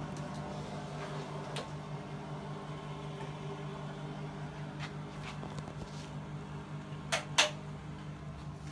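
Cat's claws scratching in a few short strokes, two sharp louder ones close together about seven seconds in, over a steady low hum.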